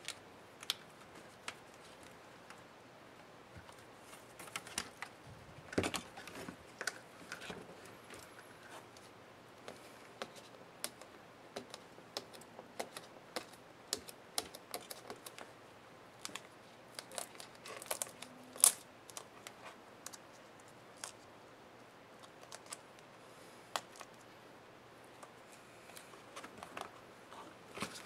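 Irregular small clicks and taps of hands handling a laptop's plastic screen bezel and LCD panel as they are worked apart from the display lid, with one sharper snap about two-thirds of the way through.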